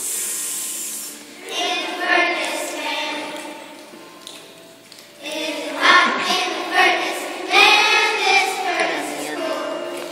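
A group of children singing together in unison, in sung phrases with a short lull in the middle. The loudest phrases come in the second half. A brief hiss opens it.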